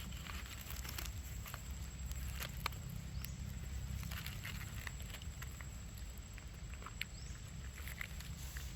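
Outdoor ambience: scattered light clicks and rustles over a low steady rumble, with a couple of faint high chirps.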